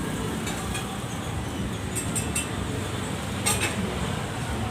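Several short clinks of dishes and utensils over a steady low background rumble, three in quick succession about two seconds in and a louder one a little after three seconds.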